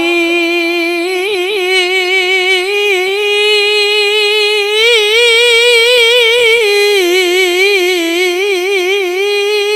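A male qari's voice holding one long, high melismatic note of Quran recitation in the ornamented tilawah style, the pitch wavering in quick trills without a break for breath; it steps up about five seconds in and falls back a couple of seconds later. Amplified through a handheld microphone and sound system.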